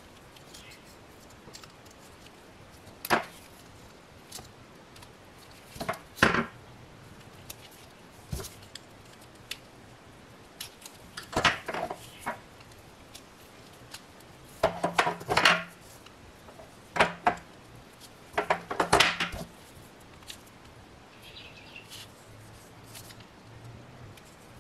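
Scattered small clicks, taps and short scrapes, some in quick clusters, as a thin metal pick pries the O-rings off plastic-bodied fuel injectors and the injectors are handled.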